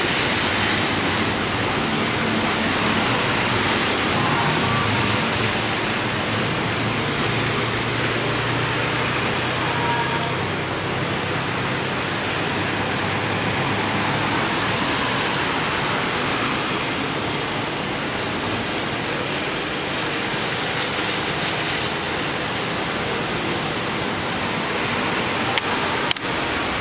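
Heavy rain falling steadily, a dense even hiss, with vehicles driving through on the wet road; a low engine hum runs through the first half. A single sharp knock near the end.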